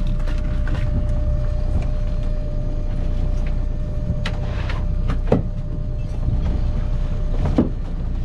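Small fishing boat's engine running steadily with a low rumble, with a faint steady whine over it and a few sharp knocks in the second half.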